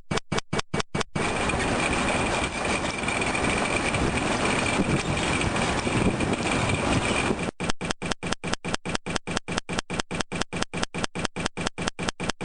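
Steady industrial machinery noise from a drum dryer plant running, with a thin high whine over a broad rumble. For about the first second, and again from about 7.5 s on, the sound is chopped on and off rapidly, about six times a second.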